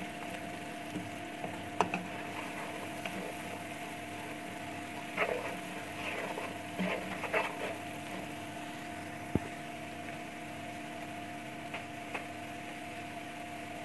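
Boiled black chickpeas frying in oil and spices in a nonstick wok: a steady low sizzle over a faint steady hum. A few scraping clatters of stirring come about two seconds in and again between about five and seven and a half seconds in.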